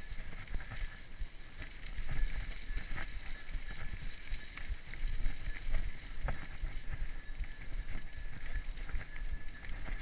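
Mountain bike riding over a dirt singletrack: tyres rolling on the dirt, with frequent short rattles and knocks as the bike goes over bumps, and wind buffeting the microphone as a low rumble.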